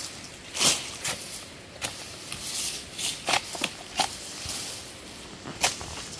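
Oil palm fronds being pruned with a pole-mounted chisel (tombak sawit): a series of sharp, irregular chopping strikes against the frond bases, mixed with the rustle of the fronds.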